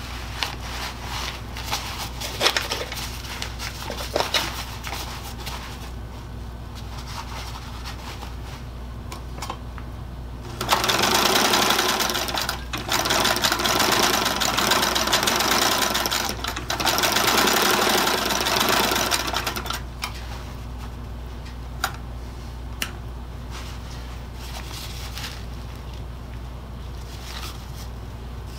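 Singer 66 sewing machine, driven by its electric motor, stitching a seam in a leaf bag's fabric. It runs for about nine seconds, starting about ten seconds in, with two brief pauses. Before and after are small clicks from handling the fabric and pins, over a steady low hum.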